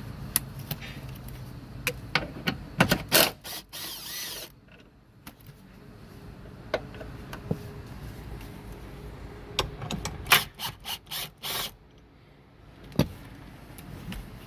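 Hand tools on a 12 mm seat belt anchor bolt: a socket wrench and metal parts making scattered sharp clicks and knocks, in two busy bursts, about three seconds in and again about ten seconds in.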